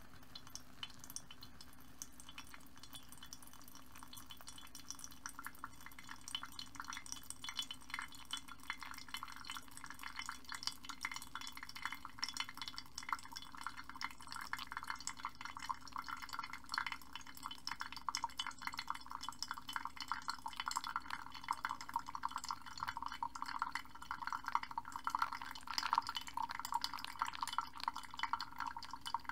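Hot water poured in a thin stream from a kettle onto wet coffee grounds in a paper-filter pour-over dripper, trickling and splashing. The sound grows louder about five seconds in and is loudest near the end.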